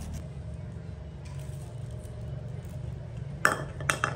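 A steady low hum, then near the end three sharp knocks as a plastic bowl clatters on a concrete floor.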